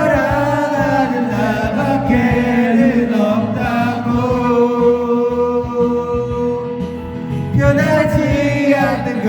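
Karaoke backing track playing while a voice sings along, holding long notes.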